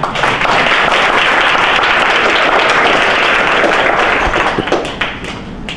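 Audience applauding: many hands clapping together in a dense, steady patter that thins out and dies away near the end.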